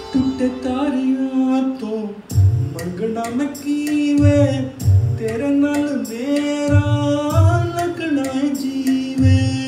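A man singing a Punjabi folk song over a recorded backing track: long held notes that glide up and down, over a steady drum beat.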